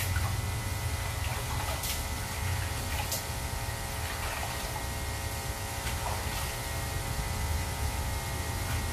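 Water sloshing in a filled sink as a long-haired cat is rinsed in it by hand, with a few short splashes, over a steady electrical hum.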